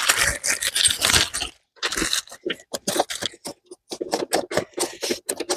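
Packaging crinkling and rustling for about a second and a half, then a run of light clicks and clinks as metal lifting rings are handled and fitted into a battery box.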